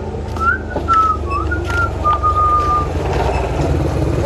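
Someone whistling a short tune of a few clear notes, the last held for most of a second, over a steady low rumble. A quick falling whistle glide comes right at the end.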